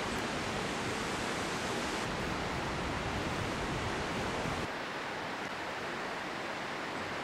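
Steady rushing outdoor background noise with no distinct events. Its tone shifts abruptly about two seconds in, and it gets quieter and thinner near five seconds in.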